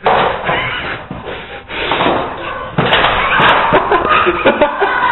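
A dog pawing and jumping against a door, banging and rattling it: a sudden bang at the start, then a fast run of knocks and rattles from about three seconds in.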